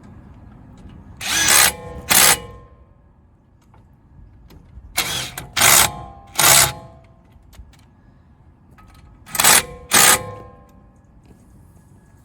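Power impact wrench tightening the brake caliper bolts in short bursts: two, then three, then two.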